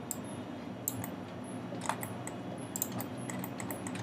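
Scattered clicks of a computer mouse and keyboard, a handful of sharp irregular clicks over a low steady hum.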